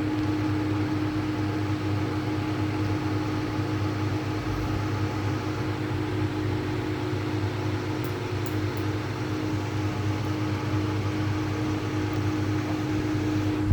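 A steady machine hum with a constant low tone over a fan-like hiss, unchanging throughout.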